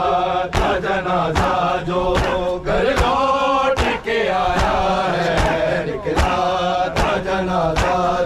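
A noha, a mourning lament, sung by men over loudspeakers, with sharp slaps of matam, open hands beating on bare chests, keeping the beat about every half second.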